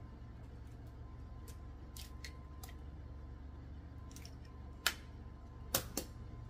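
An egg being cracked by hand: a sharp crack of shell about five seconds in, followed by two lighter clicks of shell as it is pulled apart and set down, with a few faint ticks earlier. A low steady hum runs underneath.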